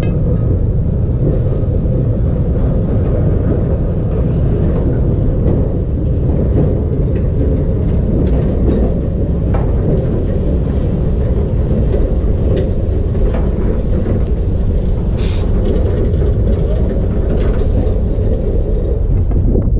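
Vintage electric tram rolling slowly over depot tracks: a steady low rumble with scattered clicks from the wheels. There is a brief hiss about fifteen seconds in, and the rumble dies away at the end as the tram comes to a stop.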